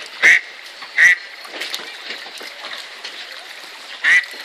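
A duck quacking: three short, loud single quacks, about a quarter of a second in, at one second and near the end, over faint steady background noise.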